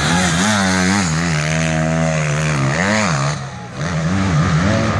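Motocross dirt bike engine revving hard through a turn, its pitch rising and falling with the throttle and gear changes. About three and a half seconds in the throttle shuts off briefly, then the engine revs up again.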